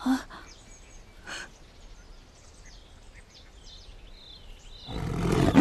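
Quiet forest ambience with faint bird chirps. Near the end a tiger's roar sets in loud and keeps going.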